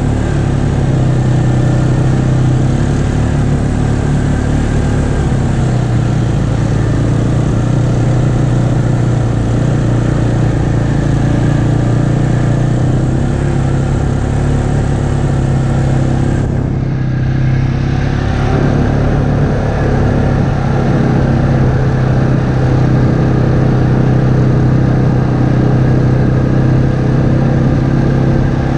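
ATV engine running steadily at cruising speed on a dirt trail, a constant low drone with a steady pitch.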